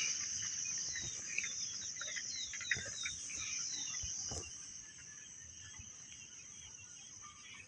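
Steady high-pitched shrilling of crickets, with a bird giving a run of short falling chirps, about three a second, through the first three seconds. The whole sound grows fainter after about four and a half seconds.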